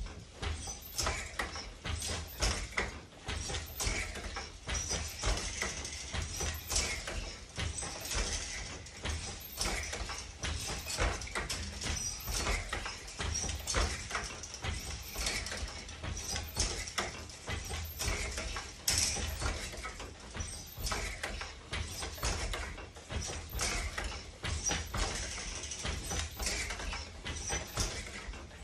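Wooden floor loom being woven on at a steady pace: the shuttle thrown across the shed and the beater knocking each pick of weft into place, a repeating clatter of wooden knocks and thumps.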